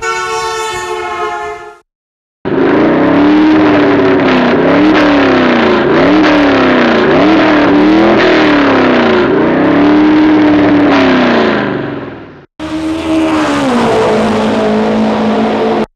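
A car engine revving hard, its pitch rising and falling over and over for about ten seconds. After an abrupt cut it revs up again and then holds a steady pitch. It is preceded by a brief steady held tone.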